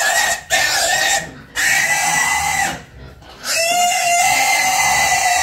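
Farmed wild boar squealing loudly in long, shrill screams as it is being caught, about four squeals with short breaks between them, the last one the longest.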